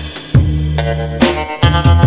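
Background music with a drum kit beat, a low bass line and sustained pitched notes.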